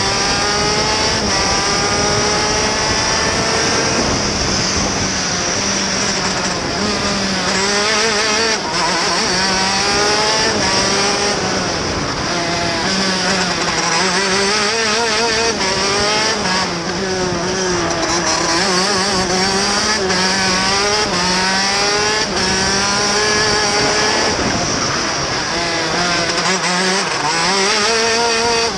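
TM K8 125cc two-stroke KZ shifter kart engine heard onboard at racing speed, its pitch climbing and dropping over and over as the kart accelerates and slows through the corners.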